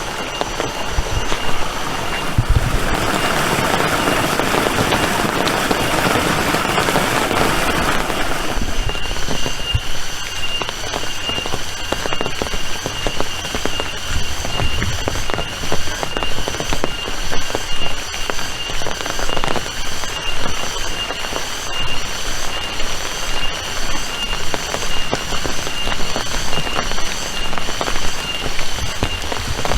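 Rain falling, with many separate drops hitting close to the microphone. A louder, fuller hiss of heavier rain or spray lasts for several seconds near the start.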